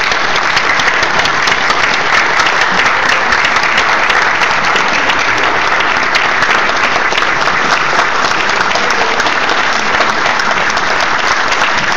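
Congregation applauding: steady, dense clapping.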